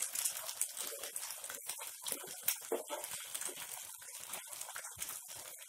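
Thick cornflour Manchurian sauce bubbling and sizzling in a nonstick frying pan over a high flame, with a spatula stirring through it. The sound is an irregular run of soft crackles and gurgles.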